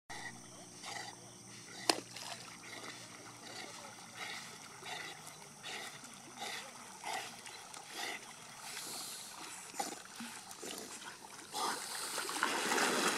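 Two Labrador retrievers swimming with training dummies in their mouths: soft water sounds recurring about once a second, growing into louder splashing near the end as they reach the bank. A single sharp click about two seconds in.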